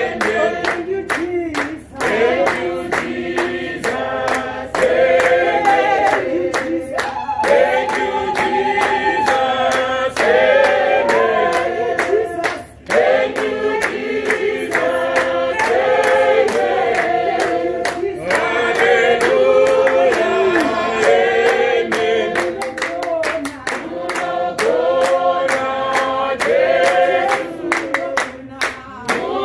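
A congregation singing a worship song together, with hands clapping along.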